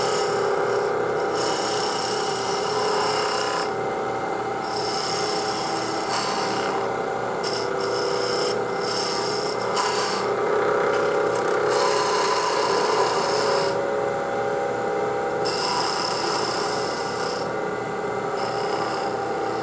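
Wood lathe running while a 3/8-inch spindle gouge cuts a bead in a spinning pine spindle. The scraping of the cut comes and goes many times as the gouge is swung across the bead, over the lathe's steady hum.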